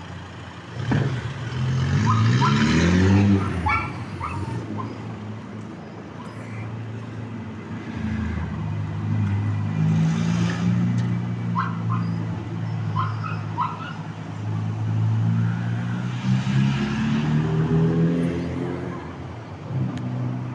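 A motor vehicle's engine running and accelerating, its pitch rising about two seconds in and again near the end, steady in between. Scattered short high chirps sound over it.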